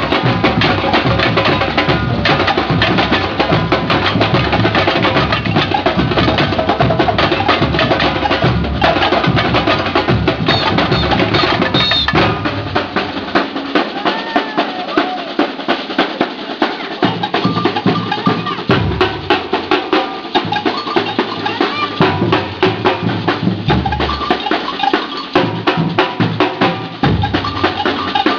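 A percussion troupe drumming together in a fast, steady rhythm of large low drums, snare drums and sharp high percussion. About twelve seconds in the low drums mostly drop out, leaving the snares and high percussion, and they come back in short breaks toward the end.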